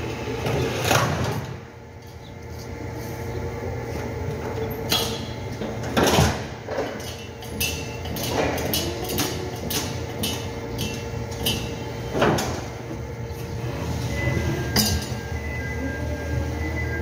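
Manual pallet jack carrying a pallet of corrugated cardboard sheets pulled and rolled across a hard factory floor. Four loud knocks and a run of short sharp clicks in the middle, over a steady hum.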